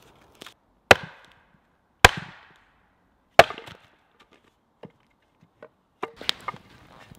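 An axe splitting firewood on a wooden chopping block, the log stuck on the axe head and both brought down onto the block: three sharp chops about a second apart, each with a short fading tail. A few lighter knocks follow near the end.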